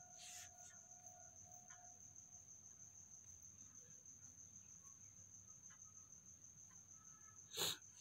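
Near silence: room tone with a faint, steady high-pitched whine, and a brief soft noise near the end.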